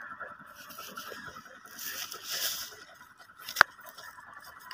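Beetal goat grazing, tearing and cropping grass in quick small snips. A single sharp click about three and a half seconds in.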